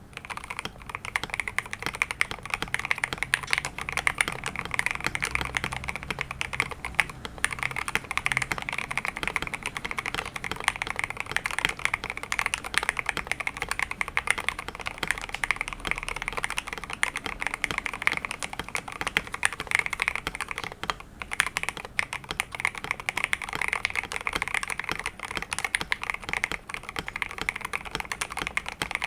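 Continuous typing on a KBDfans TOFU65 custom 65% mechanical keyboard with lubed and filmed Alpaca v2 linear switches on a polycarbonate plate, foam-dampened, with PBT XDA-profile keycaps: a dense stream of keystrokes with a brief pause about two-thirds of the way through.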